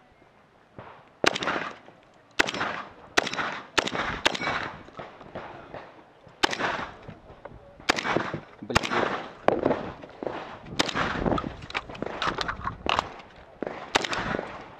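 Rapid string of shotgun blasts from an AK-style box-magazine shotgun, about a dozen shots fired in quick succession. The shots come in pairs and runs, mostly a second or less apart, and each has a short ringing tail.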